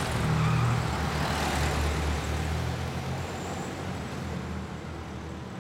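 Engine of a 1920s-era car running and pulling away, loudest about half a second in and easing off slowly as it drives off.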